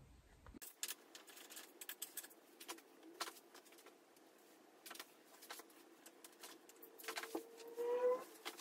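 Faint scattered clicks and light jangling of small kit parts and packaging being handled, with a short rising squeak near the end.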